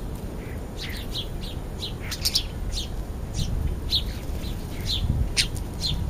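Small birds chirping at a ground feeding spot: a dozen or so short, sharp chirps, irregularly spaced, over a steady low rumble.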